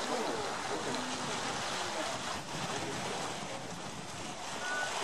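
Sea surf washing in and out among shoreline rocks: a steady rush of water.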